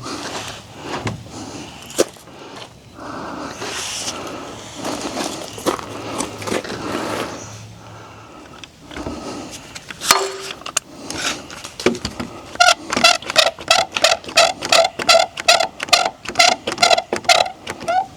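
Scrapes and sharp knocks of a heavy 2x6 board being handled and lifted into place. About two-thirds of the way through, a regular pitched pulsing starts, about three pulses a second, and runs on.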